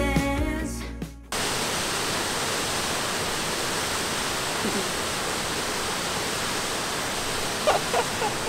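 Background music fading and cutting off about a second in, then the steady rush of a waterfall.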